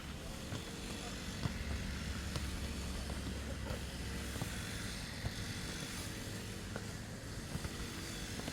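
Lawn mower engine running steadily, a low drone that weakens about halfway through, with scattered sharp knocks over it.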